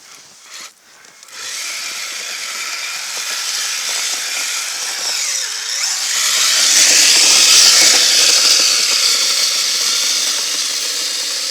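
Kyosho Blizzard RC snowcat's electric motor and gear drive whirring as it drives its tracks through fresh snow, starting about a second in and swelling toward the middle before easing slightly.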